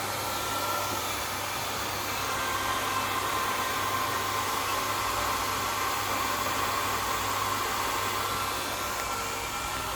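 Hand-held hair dryer running steadily: a rush of blown air with a steady whine over a low motor hum.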